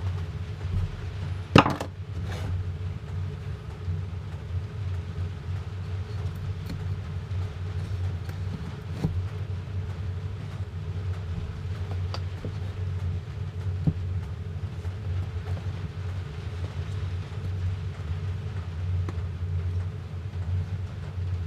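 Wooden beehive frame parts and wired foundation being handled on a bench: a few sharp clicks and knocks, the loudest about one and a half seconds in, over a steady low hum.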